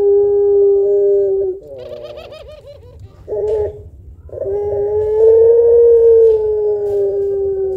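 Puter pelung dove cooing in its long, deep call. A long held coo ends about a second and a half in and breaks into a quavering roll. A short coo follows, then a second long coo starts near the middle, swells a little and carries on past the end.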